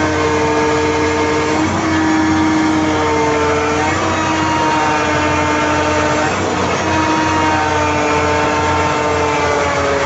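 Hydraulic pump of a Komatsu PC1250-8R excavator running under a steady low hum, with several whining tones that switch pitch every second or two. It is a newly installed pump making what is taken for an abnormal noise.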